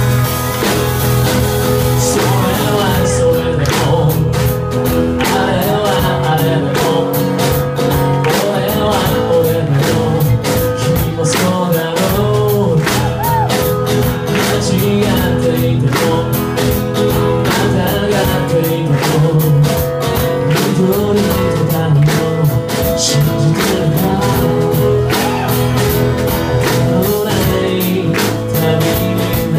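Live band playing a song: guitars, a drum kit keeping a steady beat, and a voice singing.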